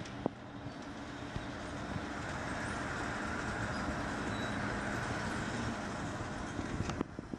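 Motorised steel roller shutter rolling up: a steady mechanical noise with a low motor hum that grows louder over several seconds, then stops suddenly with a click near the end as the shutter reaches the top.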